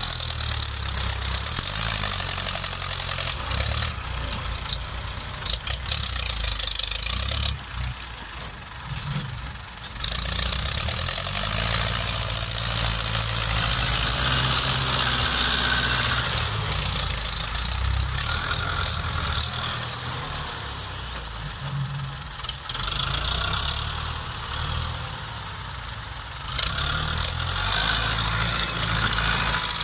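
Ford 6600 tractors' diesel engines working under load, revving up and down through loud upright exhaust stacks as they push earth with a front blade and drag a disc harrow. The engine sound drops off about eight seconds in and comes back at full level suddenly about two seconds later.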